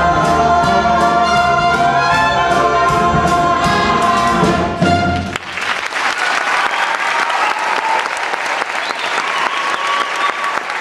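The final bars of a stage-musical song, played by a band with brass over a steady drum beat on a held closing chord. It stops abruptly about five seconds in, and audience applause follows.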